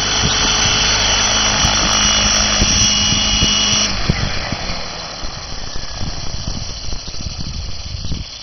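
Align T-Rex 700E electric RC helicopter's motor and main rotor whining steadily in a low hover and landing. The motor whine cuts off suddenly about four seconds in, and the rotor blades then wind down, their whooshing fading away.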